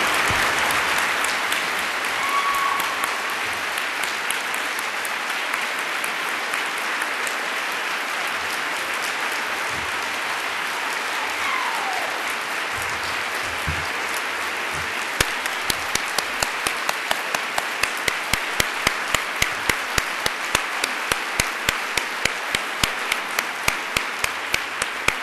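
Audience applauding at the close of a speech. A little past halfway, a steady beat of sharp claps, about two or three a second, rises above the applause.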